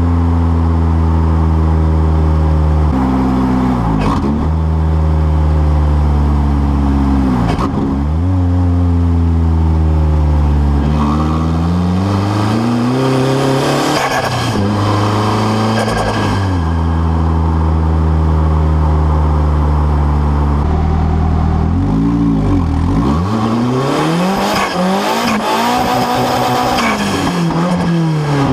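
Modified Nissan SR20DET turbocharged inline-four running hard, held at steady revs for a few seconds at a time, with the revs repeatedly dropping sharply and climbing again. At several of the lift-offs there are short bursts of hiss from the turbo's TIAL blow-off valve venting.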